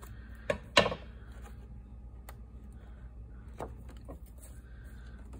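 Light handling sounds of paper crafting: a few scattered short clicks and taps, the loudest about a second in, over a faint steady hum.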